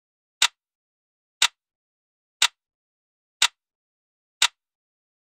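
Countdown timer sound effect: five sharp ticks, one a second, with silence between.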